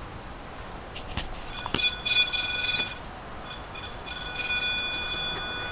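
A few sharp clicks, then a steady electronic beeping tone with several pitches held for about a second. The tone comes back about four seconds in and holds steady. The beeping is from an electronic device that the investigators suspect is a phone going off by itself.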